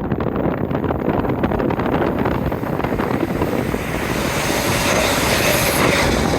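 A train passing close at speed: a loud rush of wheels on rail and displaced air, with wind buffeting the microphone. The hiss grows brighter toward the end.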